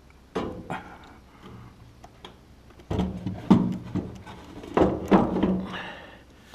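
Irregular knocks and thuds of a skid-steer's overhead cab panel, which carries gauges and speakers, being handled and pushed up against the cab frame. The heaviest bumps come about halfway through.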